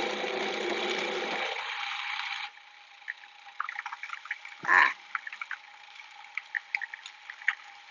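Food processor running, its blade creaming butter and sugar, then stopping suddenly about two and a half seconds in. Faint clicks follow, and a brief knock near the middle, as hands work the lid.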